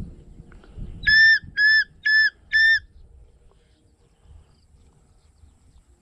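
Four short, even blasts on a falconer's whistle, each a steady shrill tone.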